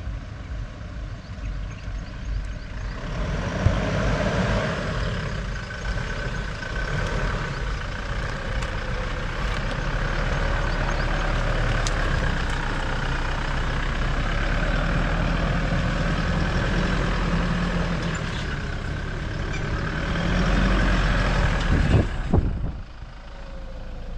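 Pickup truck driving, its engine running under a steady low rumble with road noise, the engine pitch rising and falling. It gets louder about three seconds in and cuts off sharply near the end.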